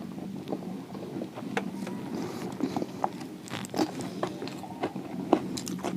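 Close-up mouth sounds of someone biting and chewing crispy fried samosa: irregular crunches and crackles, over a low steady hum.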